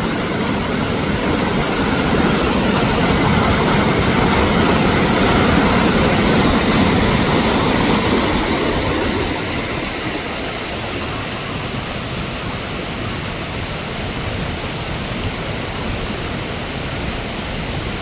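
Waterfall and creek rapids: a loud, steady rush of falling and churning water, becoming slightly quieter about halfway through.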